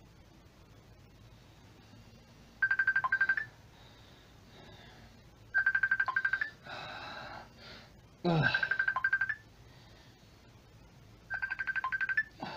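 A telephone ringing with an electronic trill, four rings about three seconds apart.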